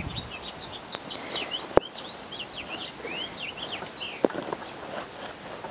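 Birds chirping in quick runs of short rising and falling notes, with a sharp click a little under two seconds in and a couple of softer clicks later on as hands work potting soil around a plant.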